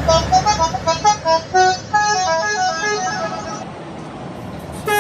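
Indonesian bus telolet horn, a multi-tone air horn, playing a quick melody of short notes stepping up and down in pitch. After about two seconds the notes lengthen, then fade out near the end, and another horn melody starts abruptly right at the close.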